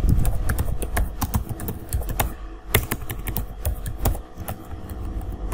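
Typing on a computer keyboard: a quick, irregular run of key clicks as a word is typed.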